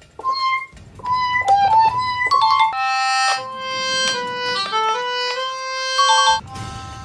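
Instrumental music: a simple tune played one held note at a time, with a low backing layer under parts of it.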